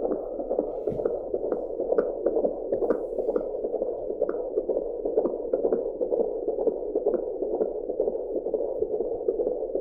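Fetal heartbeat picked up by an AngelSounds handheld fetal Doppler: a fast, regular pulsing, roughly two to three beats a second, over a steady band of static.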